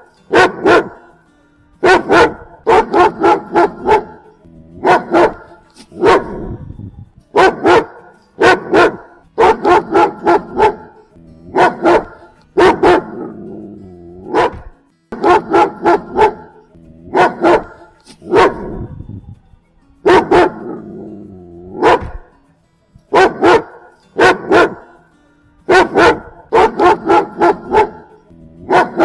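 German Shepherd barking in repeated bursts of two to four loud barks, each burst a second or two apart.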